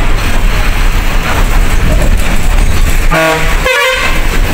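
Steady low rumble of a bus running, with a vehicle horn sounding twice about three seconds in: two short blasts at different pitches.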